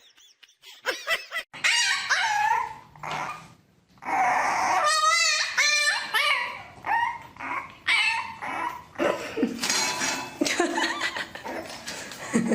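A dog barking, yipping and whining in a string of short calls, with one longer wavering whine about five seconds in.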